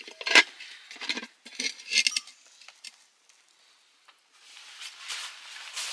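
Handling of cloth and burlap sacking over a stack of metal pots: several sharp clinks and knocks of pots and utensils in the first two seconds, then a longer rustle of cloth and sacking near the end.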